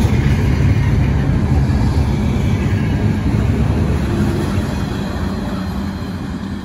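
Double-stack intermodal freight train rolling past, with a steady low rumble of steel wheels on rail. It fades near the end as the last well car goes by.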